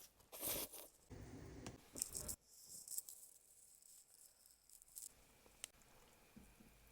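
Food packaging rustling and tearing for the first couple of seconds, then a few faint clicks and taps.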